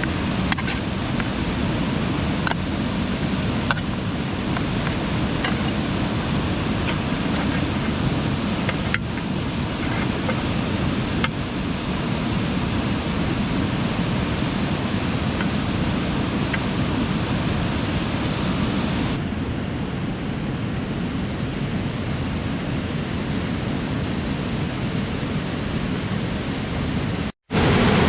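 Steady rush of flowing water, with a few faint ticks in the first dozen seconds. The hiss turns duller about two-thirds of the way in, and there is a brief dropout just before the end.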